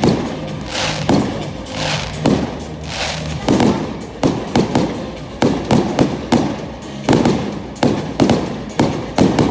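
Fireworks display: aerial shells bursting in a string of sharp bangs. The bangs come slowly at first, then in quick succession, about two a second, from partway through.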